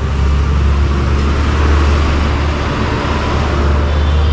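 Steady low rumble of a road vehicle in motion.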